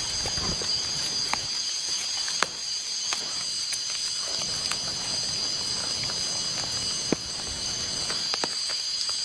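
Outdoor forest ambience in the rain: a steady high-pitched hiss and drone with a few sharp snaps or pops a few seconds apart, the sharpest about two and a half and seven seconds in.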